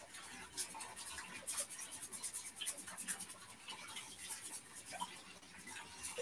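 Rice being rinsed in a strainer under a running tap, the strainer shaken so the wet grains swish and rattle in quick, irregular strokes.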